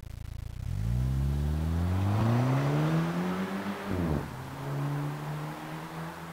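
2009 Audi A4 2.0-litre turbocharged four-cylinder running through a Magnaflow exhaust. It pulls away from idle with the engine pitch climbing steadily for about three seconds, then drops at an upshift about four seconds in. After that it climbs again more gently and fades as the car drives off.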